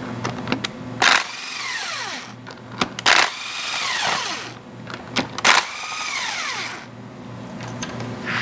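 Cordless drill driving out the bolts of a hydraulic motor's end plate: three short loud bursts, each followed by a whine that falls away in pitch.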